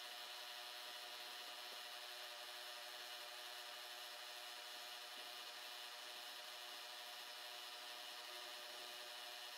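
Milling machine spindle running steadily with a 1.5 mm four-flute carbide end mill cutting a shallow slot about 1 mm deep; a faint, even hum with hiss.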